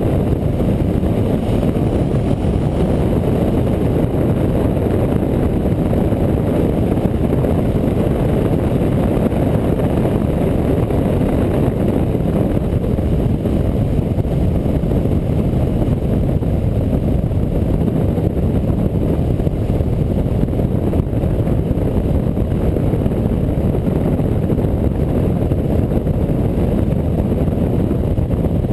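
Motorcycle cruising at steady road speed, heard from a camera mounted on the bike: wind rushing over the microphone, mixed with engine and tyre noise, a steady low rumble without change.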